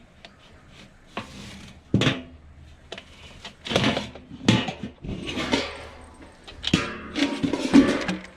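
Feed being scooped and poured into feeders: irregular clattering knocks and rustling swishes, busiest in the second half.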